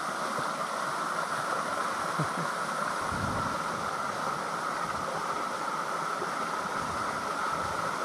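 Small waterfall pouring into a rock pool: a steady rushing splash of falling water.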